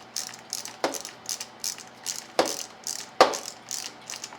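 Socket ratchet clicking in a quick, even run of ticks while driving down the 8 mm bolts of a motorcycle brake lever clamp, with three louder metal knocks, the loudest about three seconds in.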